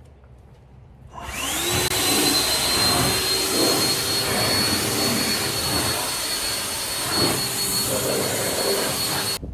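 Battery-powered blower drying a washed truck. About a second in it spins up with a rising whine, then runs steadily with a high whine over the rush of air. It cuts off abruptly just before the end.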